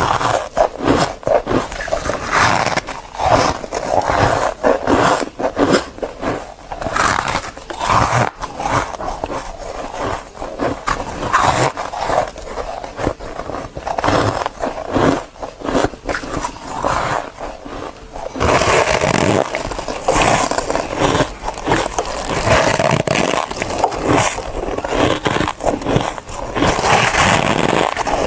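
Close-up biting and chewing of freezer frost: a dense run of squeaky, crunchy crunches. About two-thirds of the way through, the crunching becomes denser and more continuous.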